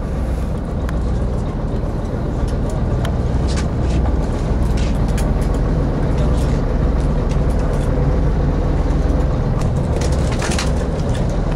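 Charter boat's engines idling, a steady low hum, with wind and sea noise over it.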